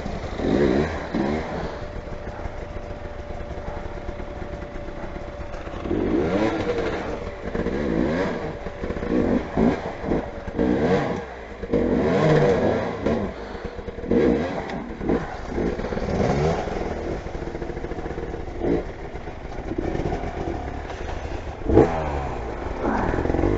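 Motorcycle engines running, first fairly steady, then revved again and again in short bursts from about six seconds in, the pitch climbing and dropping with each blip; a single sharp knock near the end.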